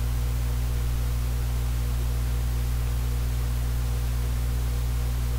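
Steady electrical mains hum, several fixed low tones with an even hiss over them, unchanging throughout.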